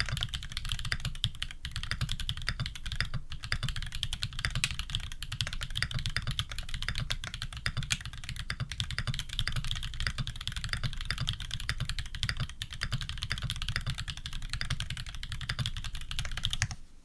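Fast continuous typing on a custom Leaf65 mechanical keyboard with tactile Holy Panda switches in a brass plate and PBT keycaps, dense key clacks with a brief pause about three seconds in.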